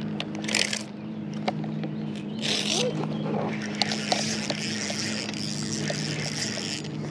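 Spinning fishing reel being handled and cranked, its whir rising from about four seconds in. Two short hissing bursts come in the first three seconds, over a steady low drone.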